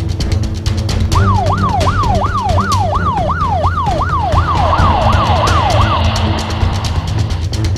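Emergency-vehicle siren in a fast yelp, its pitch sweeping up and down about three times a second for around five seconds, over background music.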